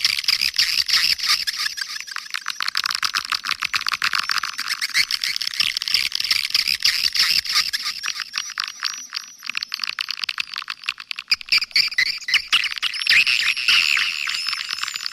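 Edible-nest swiftlets calling in a dense, unbroken chorus of rapid clicking chatter and short twittering chirps. This is a swiftlet lure call recording of the kind played to draw the birds into a nesting house, with the low end cut away so it sounds thin and high.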